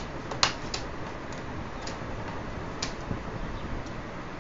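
Plastic screen bezel of an HP Compaq nx7300 laptop being pried at with a thin tool: one sharp click about half a second in, then a few fainter scattered clicks and ticks as the bezel is worked loose.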